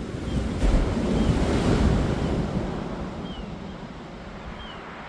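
Ocean surf breaking on a beach: a wave crashes about half a second in and washes back, fading over the next few seconds.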